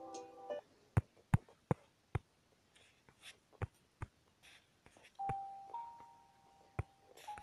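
Background music in a sparse passage. A held chord cuts off about half a second in. Sharp percussive clicks follow at irregular intervals, and two held notes come in from about five seconds in.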